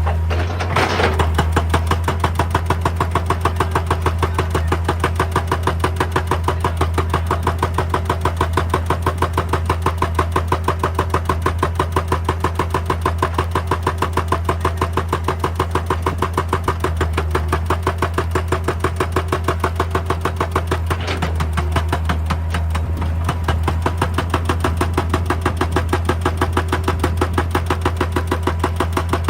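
Excavator-mounted hydraulic breaker hammering rock in rapid, regular blows over the steady drone of the excavator's diesel engine.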